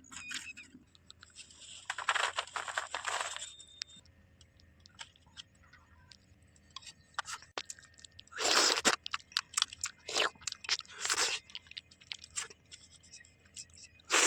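A person chewing and crunching cooked chicken feet, with loud bursts of crunching a few seconds apart and small wet clicks between them.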